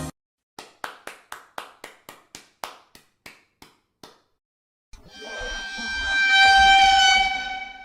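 Sound effects played one after another: a quick run of about a dozen sharp clicks, then after a short pause a single high, horn-like held tone that swells up and then fades away.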